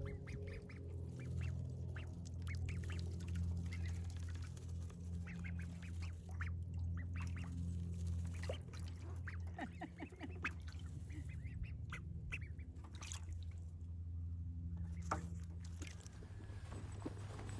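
Ducks calling in a pen, a string of short quacks and chattering calls coming in little clusters, over a low steady drone.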